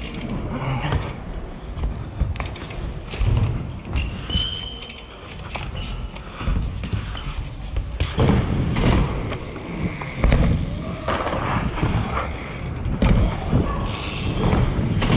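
BMX bike on plywood ramps: tyres rolling and irregular thuds and knocks of bikes landing and bumping on the wood. Near the end the bike drops in and rolls down a ramp.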